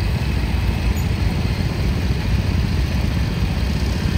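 An engine running with a steady low rumble.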